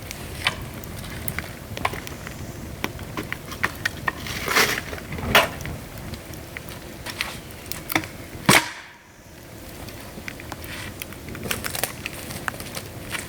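Dry bamboo cracking and snapping: a run of irregular sharp cracks, the loudest about four and a half, five and a half and eight and a half seconds in.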